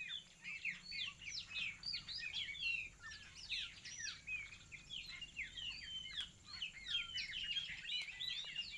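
Dense chorus of many birds calling at once: a continuous tangle of short, overlapping chirps and quick sweeping notes.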